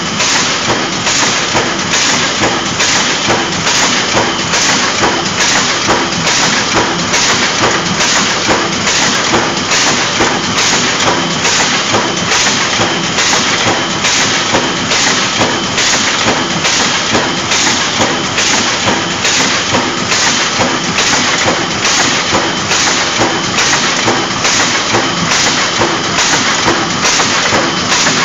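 Pneumatic die-cutting machine running with its automatic feeder taking corrugated board sheets off the stack: a loud, steady mechanical clatter with a regular knock more than once a second, one for each feeding cycle.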